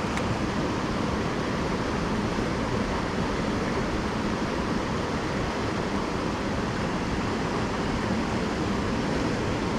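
Steady rush of flowing creek water spilling below a small spillway, an even noise with no breaks.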